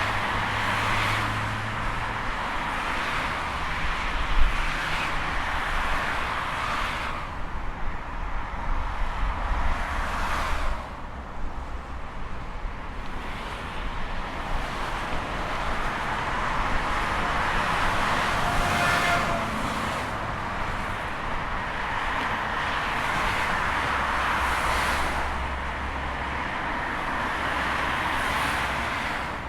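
Busy highway traffic: a continuous stream of cars passing, tyre and engine noise swelling and fading as each vehicle goes by.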